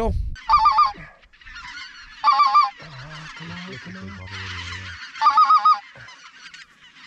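Greater white-fronted geese (specklebellies) calling: three loud, quavering, laughing calls about two seconds apart, over the steady chatter of a flock.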